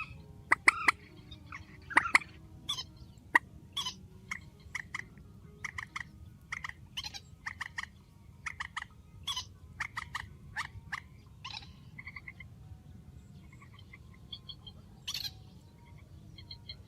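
Swamphen calls: a rapid, irregular series of short, sharp clucking and squawking notes, loudest in the first few seconds, with a soft repeated chirping underneath.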